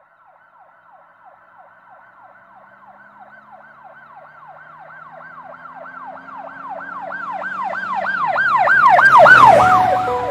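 A siren wailing in a fast repeating rise-and-fall, about three sweeps a second, growing steadily louder as if approaching, peaking with a rush of noise near the end as music comes in.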